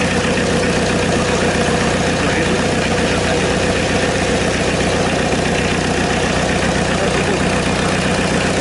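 Volkswagen Golf turbodiesel engine with a mechanical injection pump, out of the car on a test run and fed from a can of diesel, idling steadily.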